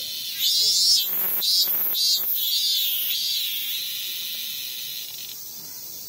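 Min-min cicada (Hyalessa maculaticollis) singing: several loud rising-and-falling phrases in the first three seconds, then the song winds down into a fading drone that stops about five seconds in. A faint, steady high hiss runs underneath.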